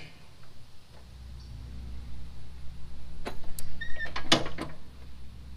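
Ferris Z2 mower deck being raised to transport height: a low steady hum with a handful of sharp metallic clicks and clunks from the lift linkage.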